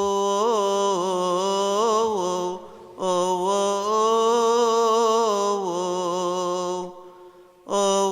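A male deacon chanting a Coptic Orthodox hymn solo and unaccompanied. He holds long melismatic notes with wavering ornamental turns, breaking off twice briefly for breath.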